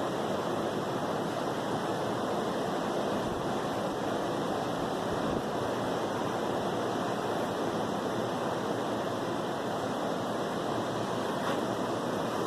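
Ocean surf breaking on the beach: a steady, unbroken rush of waves.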